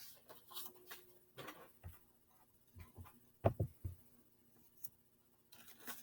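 Scattered light taps, clicks and paper rustles of craft supplies being handled on a desk, with a couple of louder low knocks about three and a half seconds in.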